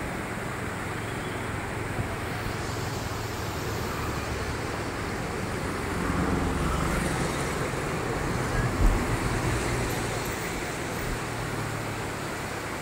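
Steady rushing of a flooded river churning past bridge piers, mixed with the low rumble of road traffic, which swells about six to eight seconds in. A short thump near nine seconds.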